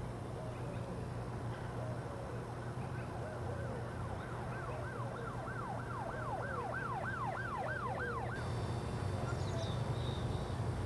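Emergency vehicle siren going up and down in pitch, its cycles speeding up from a slow wail into a fast yelp, then cut off abruptly near the end, over a steady low rumble.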